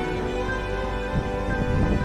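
Background music with slow, sustained chords.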